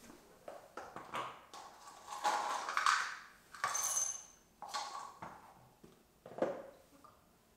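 Dry dog kibble being handled and put into a ceramic food bowl: a stretch of rustling and rattling of the kibble, then a bright ring from the bowl about four seconds in. A few lighter clinks and a knock follow.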